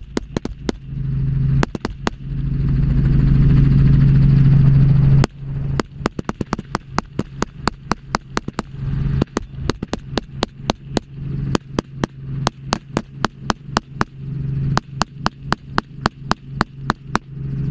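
Rapid rifle fire from an open helicopter cabin: long strings of shots at about two to three a second, with a break of about three seconds near the start. Under the shots runs the steady drone of the helicopter's engine and rotor.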